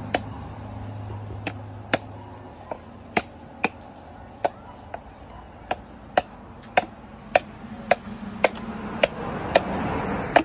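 Machete chopping into a mature, dry-husked coconut held on a wooden stump: a steady run of sharp chops, about two a second, cutting open its top.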